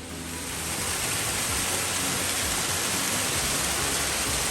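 Steady rush of falling water, swelling over the first second and then holding even.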